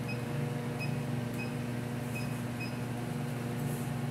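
Keypad of a Bacharach refrigerant leak monitor's display beeping as its buttons are pressed: five short, high beeps at uneven intervals, over a steady low machinery hum.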